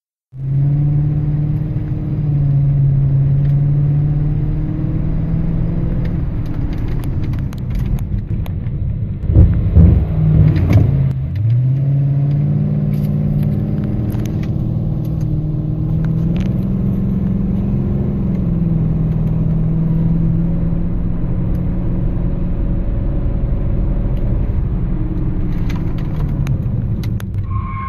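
2006 Dodge Charger Daytona's HEMI V8 running as the car is driven, with a loud low rumbling during a hard stop about nine to eleven seconds in, then the engine pitch climbing as it pulls away again.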